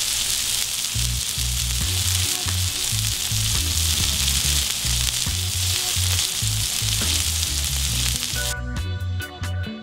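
Two beef burger patties sizzling steadily in their fat on a flat-top griddle. From about a second in a pulsing bass line of background music plays under it, and near the end the sizzle cuts off as the music takes over.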